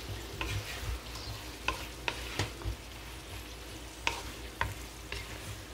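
Wooden spatula stirring fried potatoes and green beans in a nonstick wok, with scattered sharp taps of the spatula against the pan over a faint sizzle.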